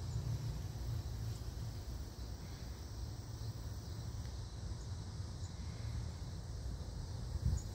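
Outdoor ambience: a steady low rumble of wind on the microphone, with a faint high background hiss.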